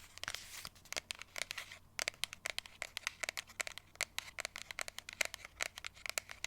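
Fingernails tapping and scratching on a box, a quick irregular run of sharp clicks and crinkles, several a second.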